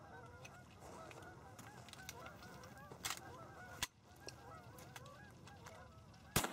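A flock of Canada geese honking, many calls overlapping. A couple of sharp clicks come midway, and a louder sharp crack comes near the end.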